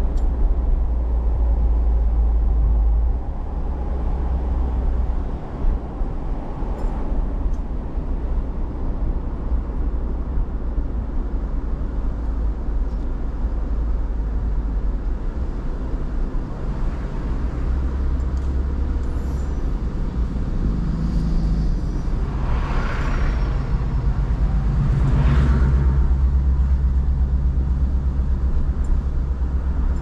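A car driving on a road: a steady low rumble of engine and road noise, with two louder swells of noise about three quarters of the way through.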